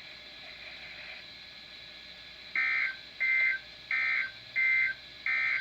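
Emergency Alert System SAME digital data bursts from a NOAA Weather Radio broadcast: five short, identical two-tone buzzy chirps about two-thirds of a second apart, starting about two and a half seconds in after a faint radio hiss. Coming straight after the test message is closed, they are the end-of-message code of a required weekly test.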